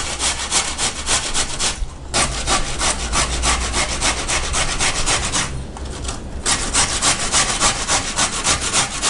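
White pumpkin (ash gourd) being grated on a stainless-steel box grater: quick rasping strokes, about five a second. The strokes pause briefly about two seconds in and again for about a second past the middle.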